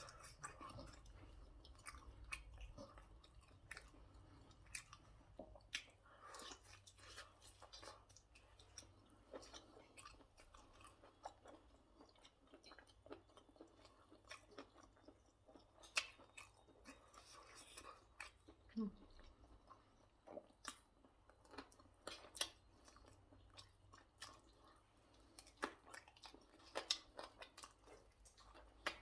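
Faint close-up chewing and biting of a person eating chicken wings, with many scattered short sharp mouth clicks.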